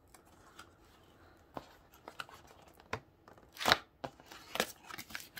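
Cardboard box being opened by hand: scattered taps and scrapes of fingers on the cardboard and its end flap, with one loud short rip of cardboard about three and a half seconds in.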